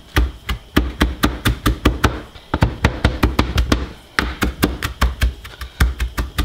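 Kitchen knife chopping flat-leaf parsley on a plastic cutting board: quick, even knocks of the blade on the board, about four a second, with brief pauses about two and four seconds in.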